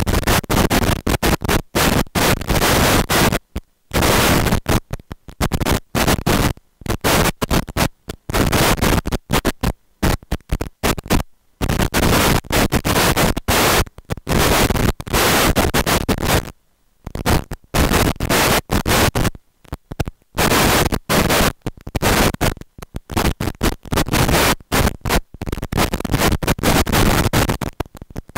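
Loud, harsh static that cuts in and out in irregular chopped bursts, with brief dead-silent gaps, the longest about 11 and 16 seconds in.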